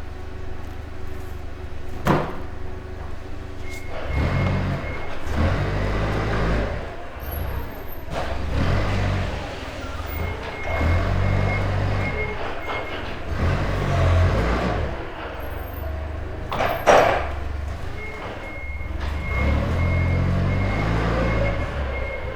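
Loading dock ambience: a diesel vehicle engine runs with a low rumble that surges up and down, while a reversing alarm beeps in three spells. A sharp knock sounds about two seconds in and a louder bang about three-quarters of the way through.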